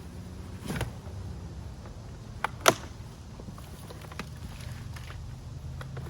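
A plastic 5-gallon bucket being upended to dump out its soil: a soft thump about a second in, then two sharp knocks close together, the second the loudest. A steady low hum runs underneath.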